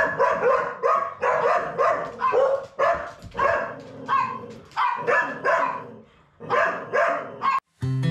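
Belgian Malinois barking excitedly in a quick series of short, pitched barks, about two a second, with a short pause near the end. Acoustic guitar music starts just as the barking stops.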